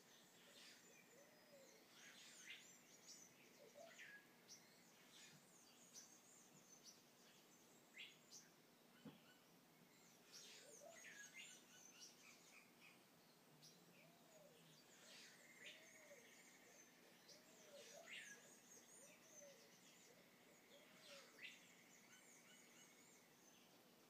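Faint night-time jungle chorus of animal calls: sharp high calls that sweep downward, repeating every second or two, over soft low arched calls in short series and a drawn-out trill in the middle and again later.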